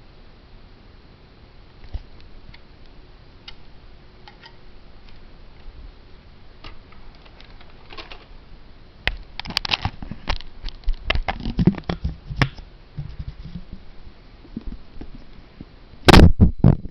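Close handling noises from a plastic toy rifle: scattered clicks at first, then a busy run of clicks, rattles and knocks from about nine seconds in. Near the end comes a loud short bump, and then the sound cuts off.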